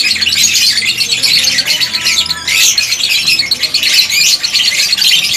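A flock of aviary lovebirds chattering with shrill squawks, many calls overlapping without a break.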